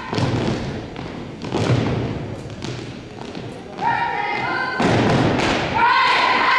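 Drill team stamping and striking in unison on a hardwood gym floor: a series of heavy thuds. From about four seconds in, drawn-out voices are called over them, stepping up in pitch.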